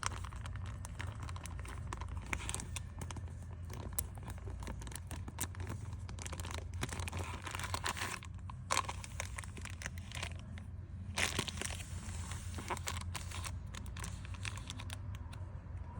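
Crinkling and rustling of plastic sleeves and packaging being handled while photocards are packed, with frequent irregular small clicks and taps, over a steady low hum.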